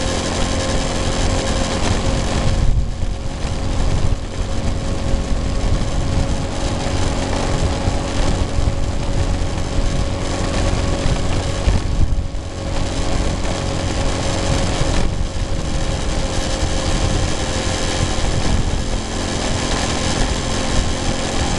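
Small motorcycle engine running steadily at road speed, with wind buffeting the microphone. The engine sound eases off briefly about three seconds in and again around twelve seconds.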